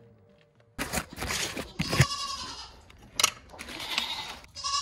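Livestock bleating: two long wavering calls, with a third starting near the end, and a few sharp knocks between them.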